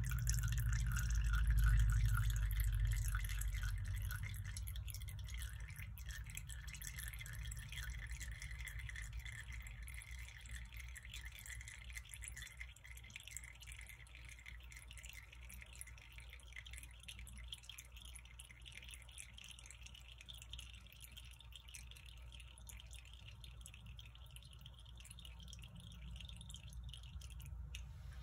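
Melted beeswax dripping from a freshly soaked ball of hemp twine back into a slow cooker pot: a fast patter of drops that thins out gradually as the ball drains, over a low steady hum.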